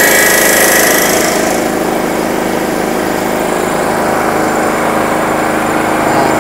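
Nardi Pacific E27 three-stage, three-piston high-pressure air compressor, electric-driven, running steadily just after start-up as it begins to build pressure. A loud hiss of air venting dies away about one and a half seconds in.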